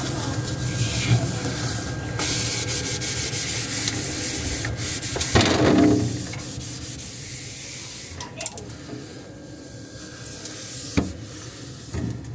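A refrigerator's inside being scrubbed by hand, a steady rasping rub with quick back-and-forth strokes and a brief louder squeak about five seconds in. The scrubbing then eases, with a few light knocks near the end.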